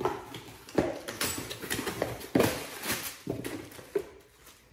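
Cardboard shipping box and plastic packaging being handled: irregular knocks and rustling crinkles as a bagged phone box is dug out of the carton, dying away near the end.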